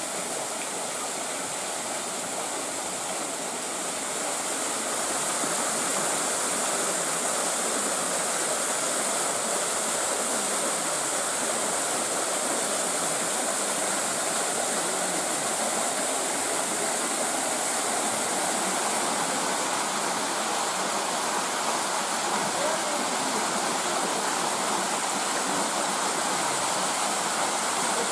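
Steady rush of falling water from a waterfall, growing louder about five seconds in and then holding even.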